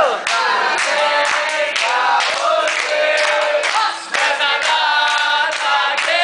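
A group of people singing a birthday song together, with hand clapping about twice a second.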